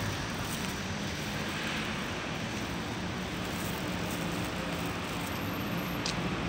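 Steady low rumble of outdoor city background noise, with a single short click about six seconds in.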